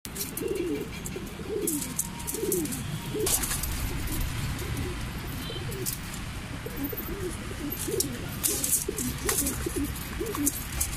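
Domestic pigeons cooing again and again in low calls that rise and fall, several birds overlapping, with scattered sharp clicks over the cooing.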